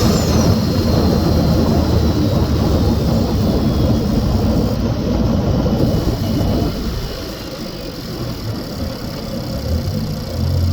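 Renault Megane 1.2 TCe turbocharged four-cylinder petrol engine running, heard from inside the engine bay while the car is driven, with a faint high whine in the first few seconds. The engine sound eases off about seven seconds in and picks up again near the end.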